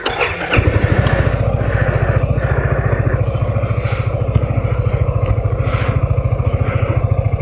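Yamaha X-Max 250 scooter's single-cylinder four-stroke engine starting about half a second in, then idling steadily with an even, rapid low pulse.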